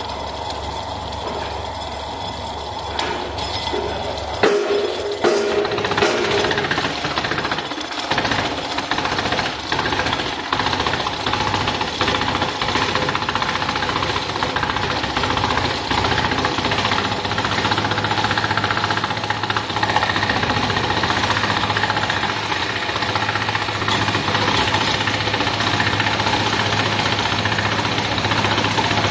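Tire strip cutter running, its rollers pulling a tire through and slicing it into rubber strips: a steady motor hum under dense, irregular clattering and knocking that grows louder about four seconds in.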